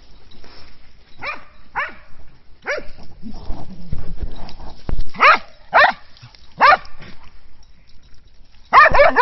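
Dogs barking: single short barks about half a second to a second apart, then a quick run of barks near the end.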